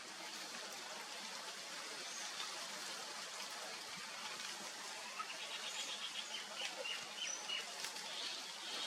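Faint bird chirps over a steady outdoor hiss: a few short high notes, with a quick run of chirps in the second half.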